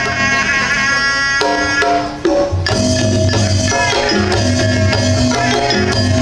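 Live traditional Sundanese pencak silat music: large barrel-shaped kendang drums beat a steady rhythm under a held melody line. There is a brief break about two seconds in, after which the drums come back stronger.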